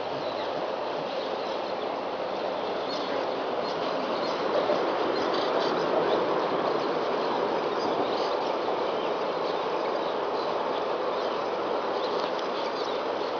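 Steady rushing of a river, with scattered short high chirps over it. No snoring rhythm stands out.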